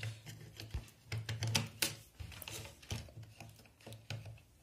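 Irregular light clicks and taps of a TV power adapter's circuit board being handled and pressed into its plastic case, over a low steady hum.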